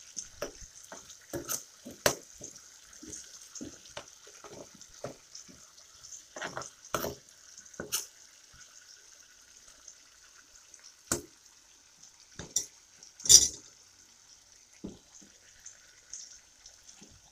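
Chicken pieces, garlic, onion and bay leaves sizzling steadily in hot oil in a pan as the spices are sautéed. A metal utensil stirring and turning the food makes irregular clicks and scrapes against the pan, and the loudest knock comes about 13 seconds in.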